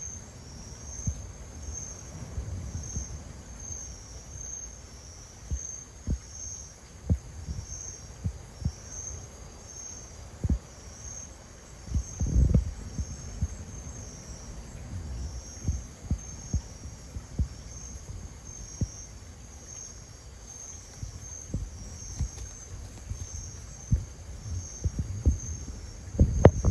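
Night insects chirping in a steady high pulse, about once a second, over scattered low knocks and thumps close by. A quick flurry of louder knocks comes near the end.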